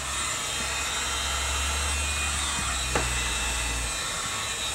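Electric heat gun running steadily, its fan blowing hot air onto window tint film to shrink the film's fingers against the glass. A brief click about three seconds in.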